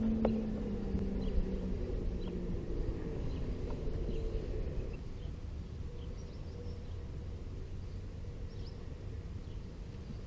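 Outdoor river ambience: a steady low rumble with faint, scattered bird chirps. A low hum fades out over the first few seconds.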